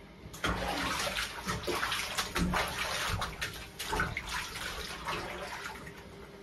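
Bathwater splashing and sloshing in a bathtub as a wet dog is washed by hand, in irregular bursts starting about half a second in and tailing off near the end.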